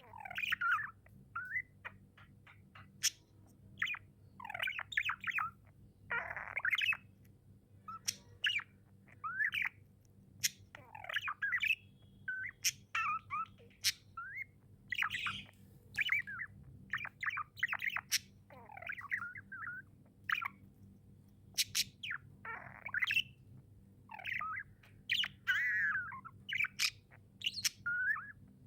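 Budgies (pet budgerigars) chirping and chattering, with short squawks and warbled calls in quick bursts and sharp clicks among them.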